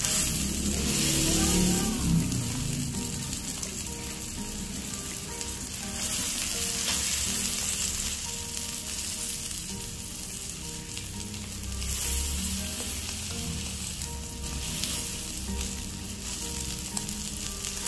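Beef sirloin steak sizzling as it sears in a hot pan, the sizzle swelling and easing in waves.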